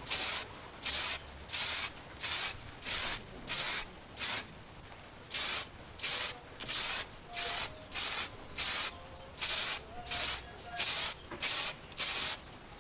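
Aerosol spray can giving short hissing bursts, about seventeen of them at roughly one and a half a second with one brief pause, as a coating is sprayed onto a freshly finished steel cleaver blade.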